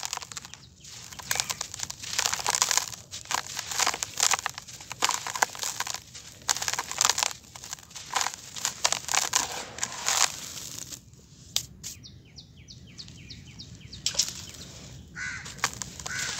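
Dry, gritty sand-and-cement clumps crushed and crumbled by hand over a plastic basin: irregular crunching with the sandy hiss of grit sifting down. The crunching pauses about eleven seconds in, and a quick run of short high notes follows before it starts again.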